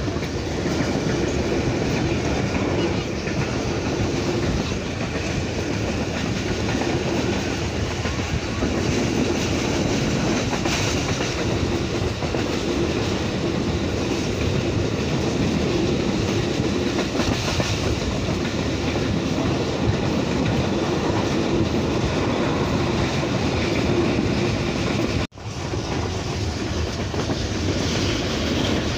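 Passenger train running steadily at speed, heard from inside a carriage at the window: the continuous rumble and rattle of the wheels on the track and the moving coaches.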